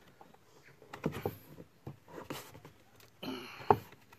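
Light taps and clicks of a plastic car door trim panel being handled, with one sharper click near the end.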